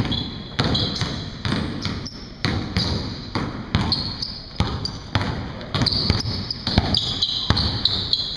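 Basketballs dribbled on a hard gym floor, each bounce a sharp smack that echoes through the hall, about two a second and a little quicker near the end as more than one ball is going.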